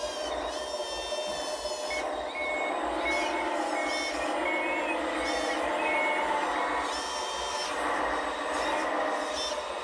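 Scale RC wheel loader's sound system playing a reversing alarm, short beeps about twice a second, over a simulated diesel engine that rises and falls as the loader backs up.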